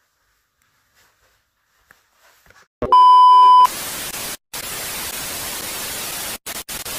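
Silence, then about three seconds in a loud electronic beep, one steady tone lasting under a second, followed by harsh static hiss that cuts out briefly a few times.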